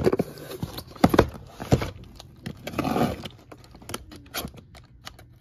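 Cardboard case of Hot Wheels cars being picked up and handled: a few sharp knocks and scrapes of cardboard, with a longer rasp about three seconds in.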